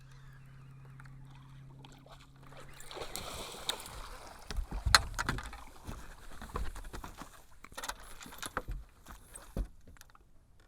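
A steady low hum stops about three seconds in. Then comes water splashing and sloshing at a boat with a string of knocks and thumps, as a hooked muskie is brought in and landed.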